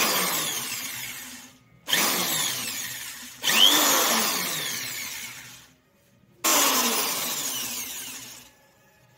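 Corded electric drill spinning an abrasive cut-off disc off load, run in four short bursts. Each burst starts suddenly and winds down with a falling whine.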